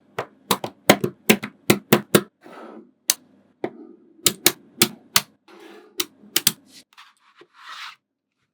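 Magnetic balls snapping together: irregular clusters of sharp clicks, about twenty in all, with soft sliding and scraping between some of them. The clicks stop about a second before the end, leaving a soft rustle.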